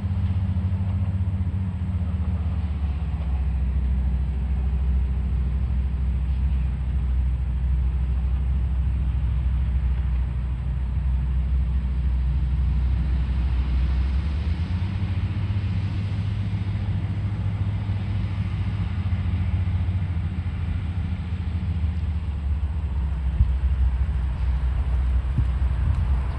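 John Deere construction machine's diesel engine running steadily with a low rumble, its engine note shifting about halfway through as it works lifting a concrete block.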